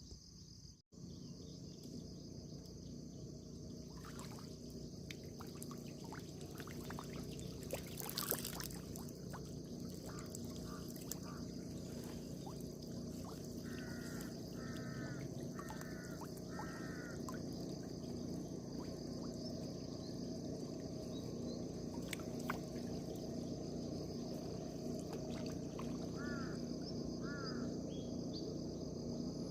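Steady outdoor drone with a constant high insect-like hiss, broken by short chirping animal calls: four in a quick row about halfway through and two more near the end.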